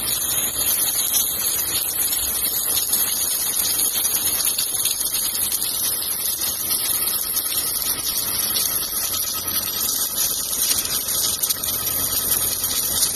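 Submerged arc welding in progress: a steady, even hiss with a low hum underneath.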